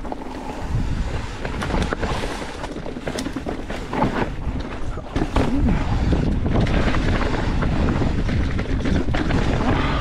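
Mountain bike riding fast over a dirt trail: wind buffeting the microphone, tyre rumble and frequent sharp rattles and knocks from the bike, louder from about halfway through.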